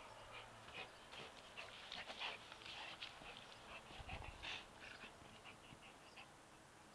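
Faint, irregular short snuffles and scuffs from a Labrador retriever nosing and mouthing a soccer ball on grass.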